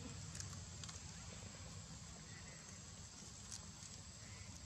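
Faint outdoor background: a steady high thin tone over a low rumble, with a few soft clicks and two faint short chirps.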